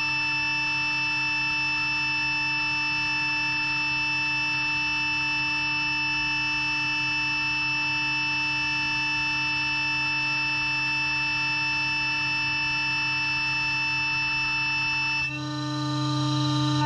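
CNC router spindle whining steadily at 18,000 RPM as a Bravo router bit mills a wood panel in a shallow pass, with a hiss of cutting under the tones. About fifteen seconds in the whine changes pitch and the level dips, then rises again.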